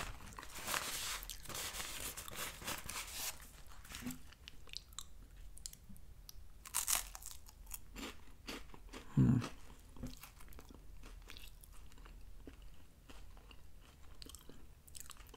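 Someone chewing and crunching a Voortman sugar-free lemon wafer, quiet crisp crunches and mouth sounds. Denser crunching fills the first few seconds, then scattered small crunches follow. The wafers are slightly stale, with less crunch than usual.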